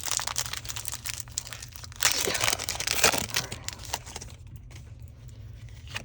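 Foil wrapper of a Pokémon card booster pack being torn open and crinkled, with a louder stretch of tearing and crackling about two seconds in that dies down after a second or so.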